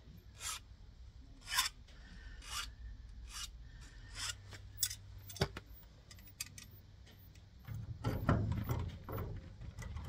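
Hand-filing of a key blank for impressioning: several separate file strokes about a second apart. About halfway through comes one sharp metallic click, and near the end a louder, denser scraping and rattling as the blank is worked in the garage door lock with grips.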